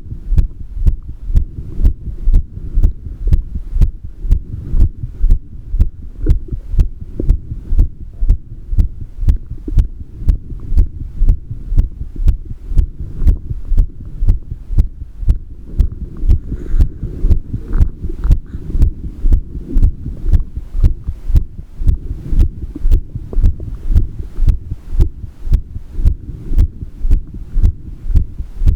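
Human heartbeat: low, dull thuds repeating in a steady, even rhythm over a constant low hum.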